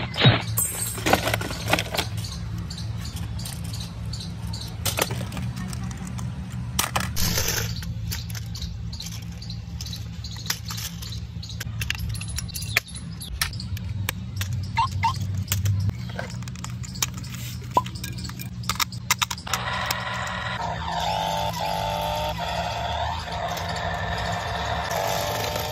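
Clicks and knocks of a cardboard box and a plastic toy being handled, then, about 20 seconds in, the electric drive motors of a remote-control rotary stunt car whining, the pitch rising and falling as it drives.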